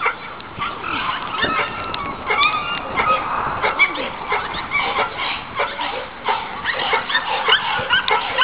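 A pack of Cane Corso dogs calling during play: many short, high yelps and whines overlapping one another without a break.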